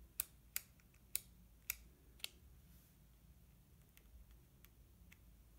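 Canon EOS 3 film camera's buttons and dial clicking as its settings are changed: five sharp clicks about half a second apart, then three fainter ones later.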